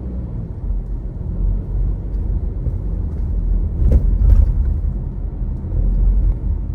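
Loud, steady low rumbling noise that swells slightly about four seconds in and again near six seconds, with a couple of faint clicks around the four-second mark.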